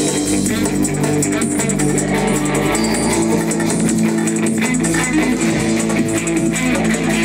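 Live rock band playing an instrumental passage: electric guitars and bass holding sustained notes over a drum kit, with no vocals.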